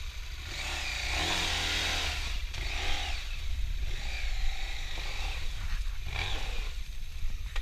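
Adventure motorcycle's engine revving up and down repeatedly under load as it climbs a steep, rocky trail.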